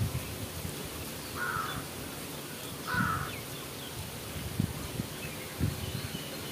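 A crow cawing twice, two short harsh calls about a second and a half and three seconds in, over faint low knocks.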